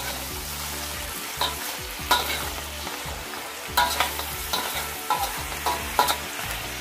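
Blue crabs with ginger and garlic sizzling in a stainless-steel wok as a spatula stirs and turns them, with several sharp scrapes and knocks of the spatula against the pan.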